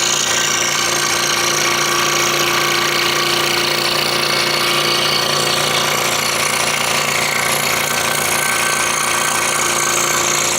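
Scroll saw running steadily, its reciprocating blade cutting through a thin wooden puzzle board.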